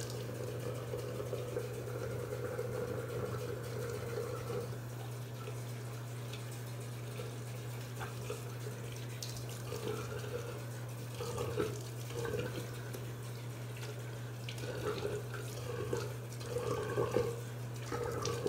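Bathroom sink tap running while a person splashes water onto their face to rinse off cleanser, over a steady low hum. The splashing comes in uneven bursts, most of them in the second half.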